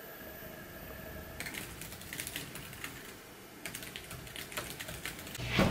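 Typing on a laptop keyboard: quick, irregular key clicks that start about a second and a half in.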